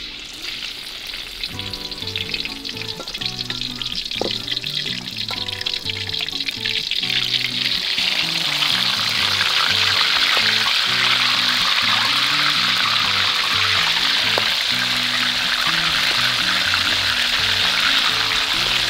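Fish steaks sizzling as they fry in hot oil in a wok, the sizzle building louder over the first several seconds as more pieces are laid in, then holding steady. Background music plays throughout.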